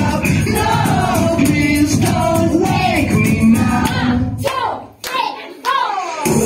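Upbeat song with singing and a steady dense beat. About four and a half seconds in, the music cuts out for over a second, leaving only a couple of short sliding vocal calls. A new stretch of music starts just before the end.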